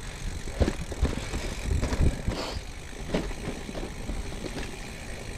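Gravel bike rolling along a dirt forest trail: steady tyre noise with scattered knocks from bumps in the path.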